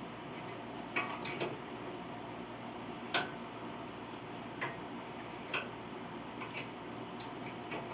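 A few light, irregularly spaced metallic clicks and taps of hand tools being handled while setting up to tap a drilled hole in a cast-iron piano plate.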